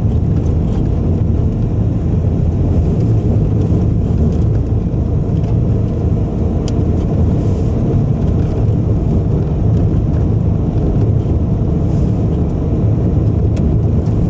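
Car driving at speed: a steady low rumble of road and engine noise, heard from inside the cabin.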